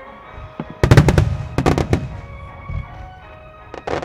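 Starmine fireworks: shells bursting in rapid clusters of sharp bangs, one about a second in, another half a second later and more near the end, over steady background music.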